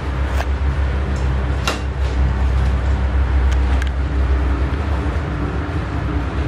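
Panasonic FV-25TGU2 10-inch ceiling exhaust fan, the earlier six-bladed version, running steadily: a loud low hum with rushing air over it, and a few light clicks.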